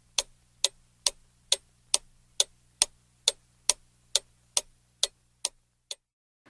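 Clock ticking evenly, a little over two ticks a second, over a faint low hum, the last ticks growing weaker near the end.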